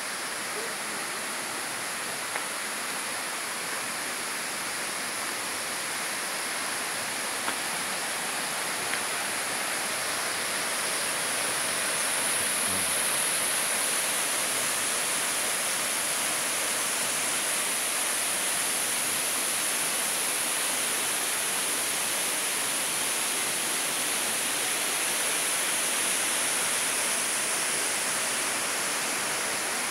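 Steady rush of a waterfall pouring into its plunge pool, growing a little louder about twelve seconds in.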